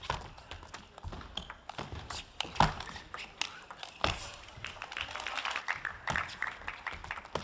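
Table tennis rally: a celluloid ball clicking sharply off rackets and the table, in a quick irregular series, the loudest hit about two and a half seconds in.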